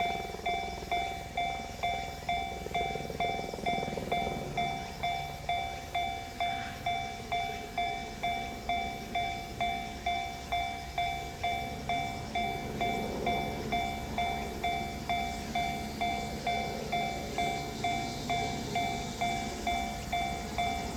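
Japanese railway level-crossing warning alarm sounding its electronic 'kan-kan' tone, about two strikes a second and steady throughout, signalling that a train is approaching.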